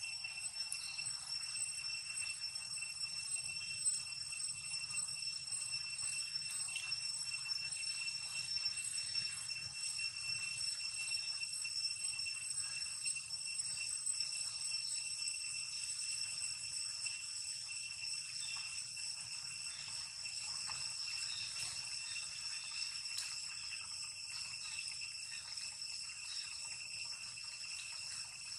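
Steady high-pitched insect drone, a continuous shrill buzz that holds one pitch without a break.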